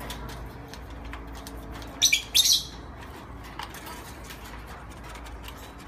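Pet bird making two short, sharp, hissy calls in quick succession about two seconds in, with faint small ticks around them.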